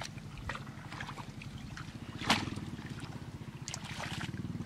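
A small engine running steadily, with wet squelches and slaps of feet and hands in shallow mud; the loudest is one sharp slap a little over two seconds in.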